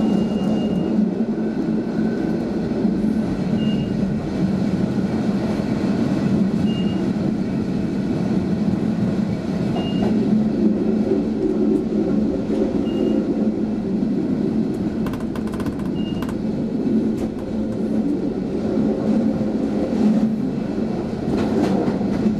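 Matterhorn Gotthard Bahn electric train running through a tunnel, heard from inside the driver's cab: a steady rolling rumble with a low motor hum. A short high beep repeats about every three seconds through the first two thirds, and a few sharp clicks come about two thirds of the way in.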